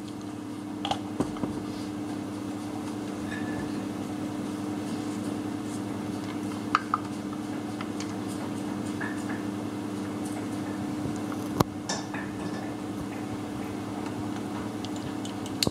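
Steady hum throughout, with a few light metallic clicks and clinks as a compression tester's hose and fitting are handled at the spark plug holes of a bare four-cylinder engine. The sharpest click comes about three-quarters of the way through.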